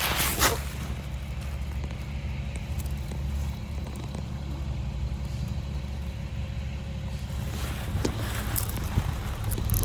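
Steady low hum of outdoor air-conditioning condensing units running, with a few light clicks near the start and about eight seconds in.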